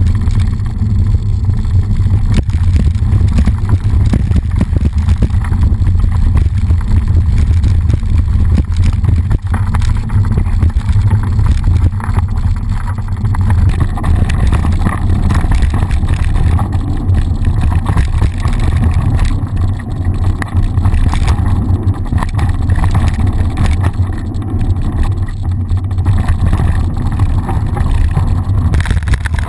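Mountain bike rolling fast down a dirt trail, heard through a bike-mounted action camera: a loud, steady low rumble of wind and knobby tyres on dirt, with frequent small knocks and rattles from the bumpy track.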